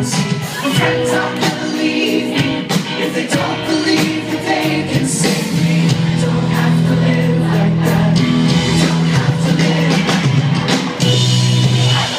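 Live rock band playing loud, with electric guitars, drums and singing, heard from within the audience.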